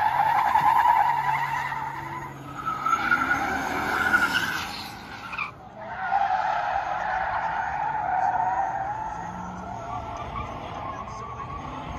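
A car's tyres squealing in long, wavering screeches as it slides in circles on asphalt, with the engine revving underneath; the squeal dies away briefly about halfway through, then starts again.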